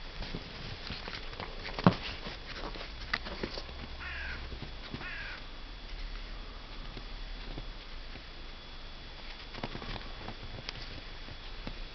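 Dogs playing in snow: scattered soft crunches and clicks of paws, with one sharp knock about two seconds in, the loudest sound. A little before the middle come two short, harsh calls about a second apart.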